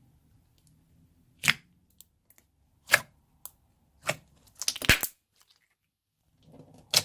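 Stiff clear slime being squeezed and pulled, giving sharp single cracks and pops every second or so, with a quick run of crackles in the middle.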